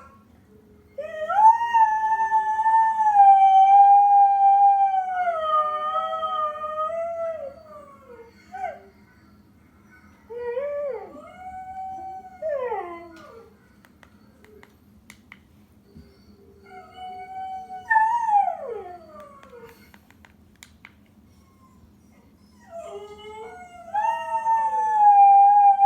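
A pet dog howling just after waking up. One long howl of about six seconds is followed by three shorter howls whose pitch slides up and down.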